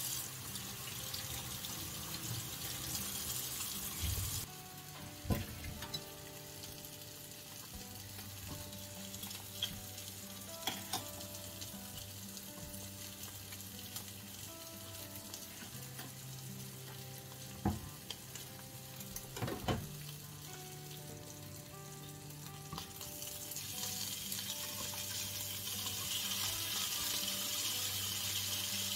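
Pork steaks sizzling as they fry in a frying pan, with a few sharp knocks of utensils on the pan. The sizzle drops away sharply about four seconds in and builds up louder again near the end, as the meat is turned with tongs.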